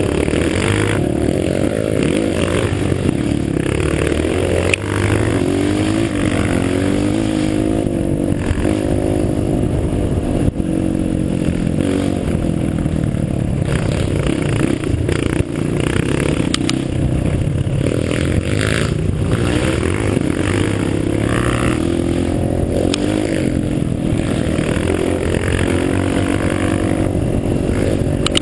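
Off-road vehicle engine pulling along a rough dirt trail, its revs rising and falling, with rattles and occasional knocks from the vehicle over the uneven ground.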